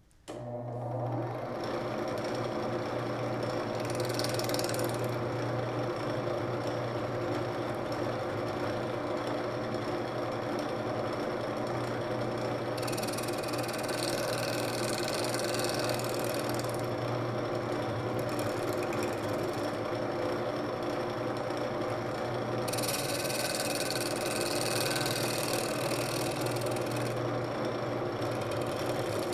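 A shop-built wood lathe for banjo rims switched on and running steadily with a hum, turning a wooden banjo rim. The cutting tool cuts into the wood in three spells, each adding a hiss over the motor, as the rim is trimmed down toward the size for fitting the tone ring.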